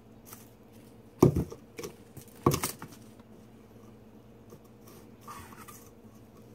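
Two sharp knocks about a second apart, each followed by a short scrape, then a few light clicks and a fainter rustle near the end: a cat wand toy and its lure being jiggled against a cardboard box on carpet.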